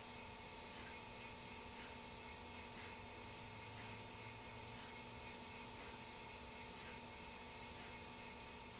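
Turn signal beeper giving a short high beep with each flash, about three beeps every two seconds, as the computer turn signal controller runs its automatic 18-flash right-turn routine; the beeping stops near the end.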